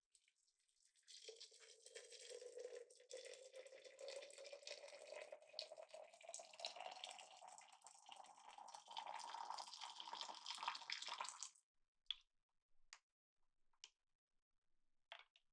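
Water poured in a steady stream into a glass pitcher, the pitch of the pour rising steadily as the pitcher fills. The pour stops abruptly about eleven and a half seconds in, followed by a few faint clicks.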